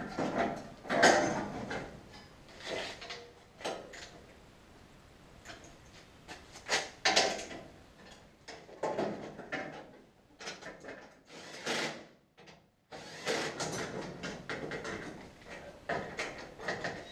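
Irregular clatter, knocks and scrapes of metal car parts and hand tools being handled during reassembly, in uneven bursts with short gaps.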